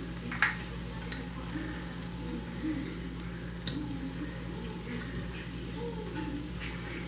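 Raw rice frying with chopped leek in a pot on the stove, stirred with a spoon that clicks against the pan a few times.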